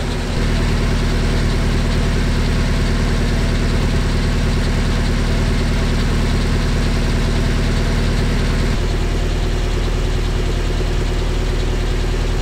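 Willys Jeep's L134 flathead four-cylinder engine running at a steady fast idle on part choke while still cold and warming up, heard at the exhaust tailpipe; its carburettor is a Carter WO rebuilt with original parts. The sound gets a little louder about half a second in, and the deep rumble thins slightly about nine seconds in.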